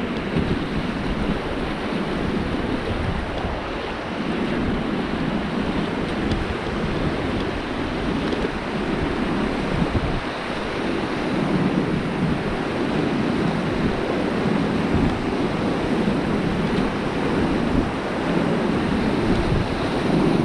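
River water rushing steadily around a raft, with wind noise on the microphone.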